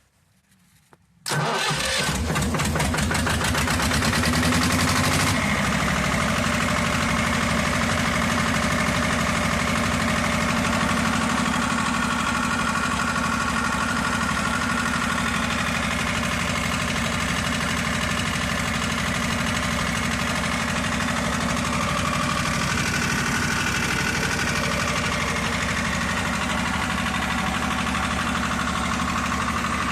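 1988 Lister TS2 two-cylinder air-cooled diesel engine of a 7 kVA generator set, started from cold by its Start-o-matic control: it fires up suddenly about a second in, runs with a harsher clatter for about four seconds, then settles into a steady run.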